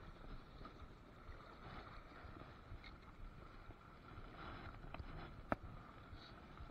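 Faint steady rush of river water around a wading angler, with a few small clicks and one sharp click about five and a half seconds in.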